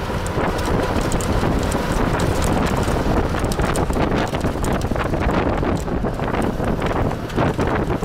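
Ride in a moving vehicle: wind buffeting the microphone over a steady road rumble, with quick irregular rattling clicks throughout.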